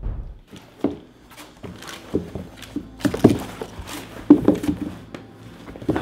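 Irregular thumps and knocks of things being handled and moved about in a small room. They come a second or so apart, and the loudest fall about three and four seconds in.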